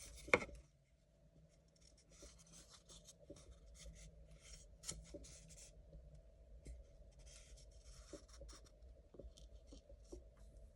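Short, irregular scraping strokes of a hand tool on birch wood while a kuksa cup is being carved and finished, with one sharp knock about a third of a second in.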